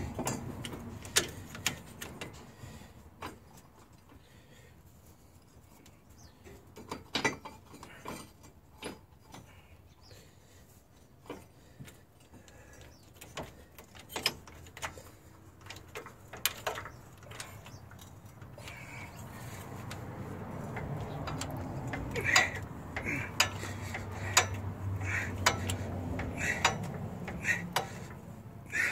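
Metal clicks and clinks from working a bottle jack in a homemade ball joint press frame: scattered knocks at first, then from about two-thirds in a more regular run of clicks, about one or two a second, over a low hum.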